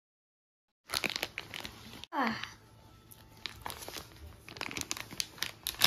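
Plastic bag crinkling and rustling as a child's hands pull and work at it, with a brief rising vocal sound about two seconds in.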